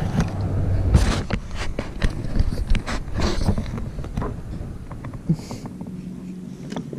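Close handling noise: scuffs and sharp knocks as hands work at a landing net's rubber mesh right in front of the camera, over a steady low rumble. The knocks are thickest in the first few seconds and thin out and fade toward the end.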